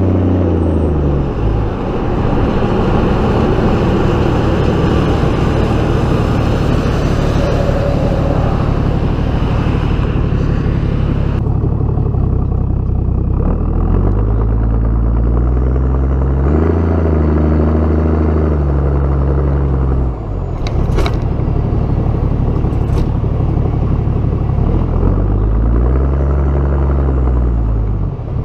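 1992 Toyota Land Cruiser HDJ81's 1HD-T turbo-diesel straight-six, heard at the tailpipe of its 2.5-inch straight-pipe exhaust while driving. The deep exhaust note falls away at first, then rises and falls twice as the throttle is opened and closed. A couple of sharp clicks come a little past the middle.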